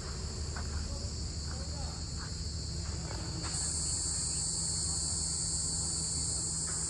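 Insects chirring steadily at a high pitch, growing louder about halfway through, over a low steady hum.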